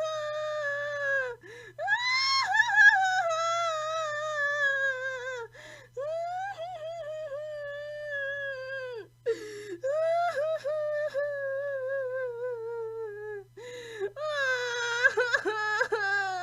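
Cartoon-style crying sound effect: a high-pitched voice wailing in long cries that slide down in pitch, each broken off by a short gasping breath. Near the end the wail turns into wavering sobs. A faint steady low hum runs underneath.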